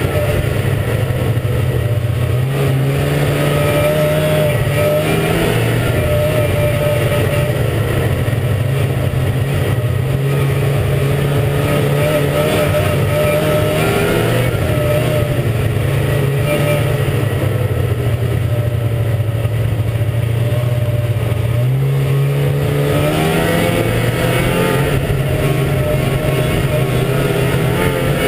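Ski-Doo MXZ 380 snowmobile's two-stroke engine running under way, heard from the rider's helmet, its note rising and falling with the throttle and climbing again near the end.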